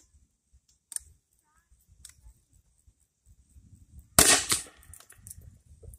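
A break-action 40mm grenade launcher firing a 3D-printed round once, about four seconds in: a single sharp, loud shot. A second crack follows a fraction of a second later.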